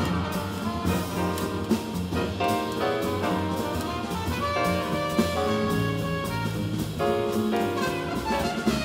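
Live jazz quartet playing: a trumpet carries the melody over double bass, piano and drum kit.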